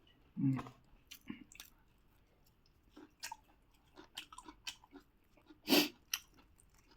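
Close-up eating sounds of a person chewing puri with achar: wet chewing and lip smacks heard as a string of short sharp clicks, with a louder one about half a second in and another near six seconds.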